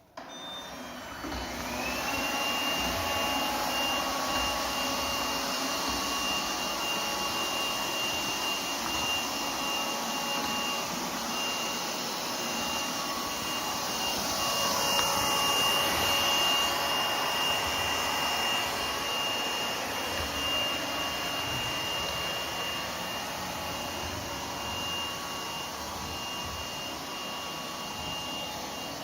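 Lefant U180 robot vacuum running, its suction motor giving a steady whirring hiss with a high whine. The sound starts abruptly, and the whine rises and settles about two seconds in as the motor spins up.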